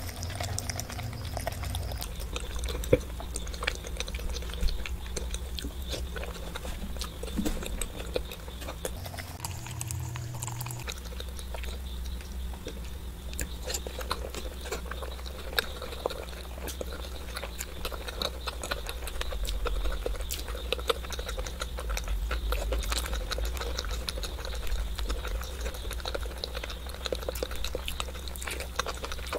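Close-miked wet eating of peeled hard-boiled eggs: squishing, chewing and lip smacking, with sauce-covered fingers squelching in thick red sauce and many small sharp clicks. A low steady hum sits underneath.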